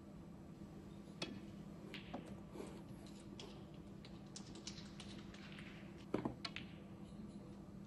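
A few sharp clicks and knocks, the loudest about a second in and a couple more near the end, over a low steady hum.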